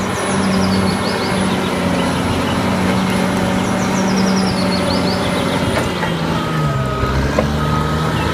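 Large crawler bulldozer's diesel engine running under load as its blade pushes dirt and rubble, with faint metallic clinking from the machine. The engine pitch dips about seven seconds in and then partly recovers as it lugs against the load.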